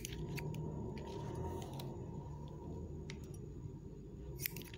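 Hair-cutting scissors snipping through a held section of wet hair: several separate snips, with a quick run of them near the end, over low steady room noise.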